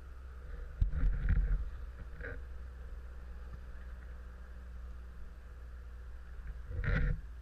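Dirt bike engines running at low revs on a rocky hard-enduro climb, with two short loud surges, one about a second in and one near the end.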